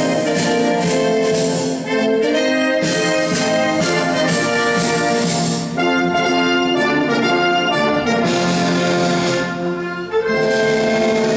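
Brass band music: several brass instruments playing a slow tune in harmony.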